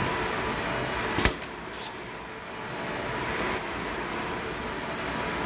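Programmable pattern sewing machine with a steady hum, one sharp clack about a second in, then a few lighter clicks.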